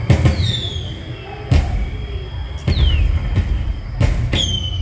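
Dark-ride show soundtrack of cartoon sound effects: several sharp thumps and three falling whistles, over a low rumble.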